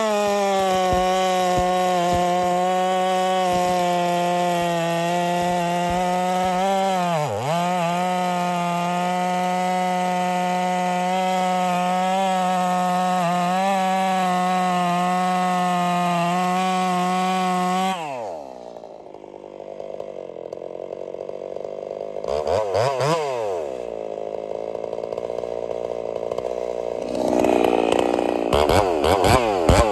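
Poulan Pro two-stroke chainsaw cutting through a log at steady full throttle, sagging briefly about seven seconds in. About eighteen seconds in the engine falls off the throttle, then it revs once briefly and bites into another cut near the end, its chain running without oil.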